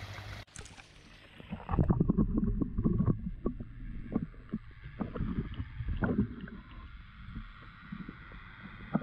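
Muffled underwater sound from a camera submerged in a pond: water sloshing and knocking against it as it is moved, loudest about two seconds in, then quieter irregular taps and sloshes.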